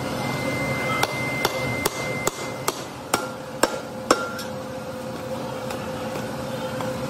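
A hammer striking metal about eight times in a row, roughly two blows a second, with a ringing note after some of the blows. A steady machine hum runs underneath.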